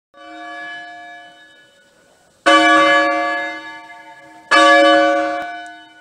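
Church tower bell struck twice, about two seconds apart, each stroke ringing out and dying away. A fainter bell note fades out before the first stroke.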